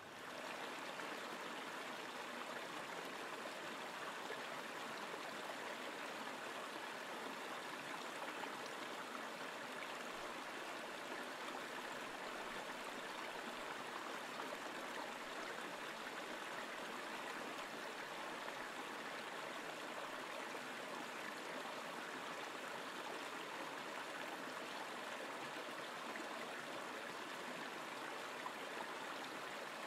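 Shallow river rushing over rocks in a riffle: a steady, even rush of water.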